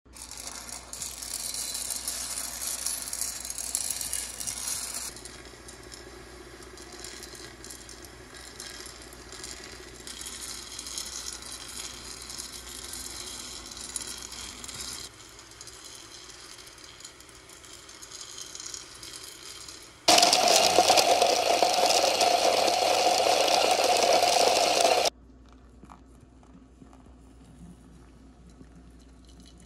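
Coffee beans rattling and sliding as a metal stirring arm sweeps them around a home roaster's pan, heard in several short cuts. About twenty seconds in, a much louder steady whirring runs for about five seconds and cuts off suddenly. After it comes faint water pouring onto coffee grounds in a pour-over filter.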